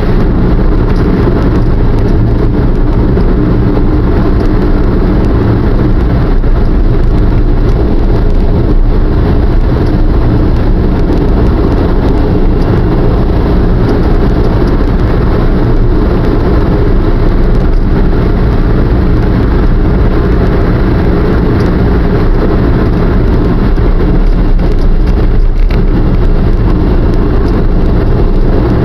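Car driving at a steady speed, with engine and tyre road noise as a loud, steady, low rumble inside the cabin.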